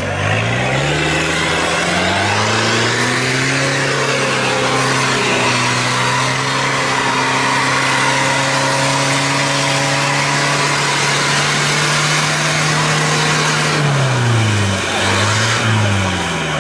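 Off-road car's engine revving up and held at high revs for about ten seconds as the car ploughs through deep mud, then dropping back, with one short blip of the throttle near the end.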